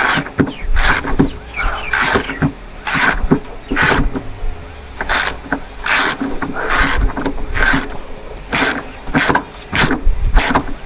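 Hand tools working on the fuel tank strap nuts under a car: a run of short, irregular scraping and clicking strokes, several a second, with brief pauses between.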